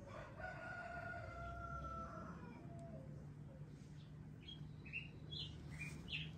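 A rooster crowing once, faint and drawn out for about two seconds, followed near the end by a few short bird chirps.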